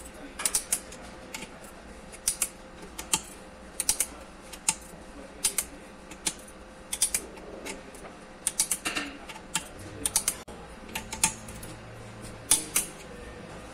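Sharp metallic clicks in short irregular clusters: a hand ratchet being worked on bolts at the top of a Hyundai Elantra engine during reassembly.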